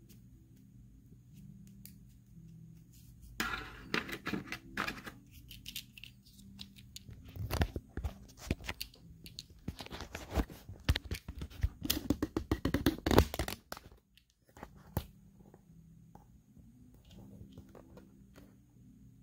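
Handling noise from a toy footlocker and its metal latch. About ten seconds of clicks, knocks and rustling begin a few seconds in and stop suddenly near the end, over a faint steady low hum.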